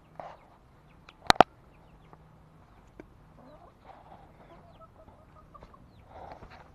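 Chickens clucking in a run, with two sharp clicks in quick succession about a second and a half in.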